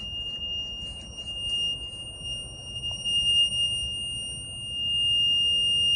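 Piezo speaker alarm sounding one steady, high-pitched buzzer tone that grows louder about five seconds in. It is a homemade Arduino intruder alarm, set off when its photoresistor picks up someone passing.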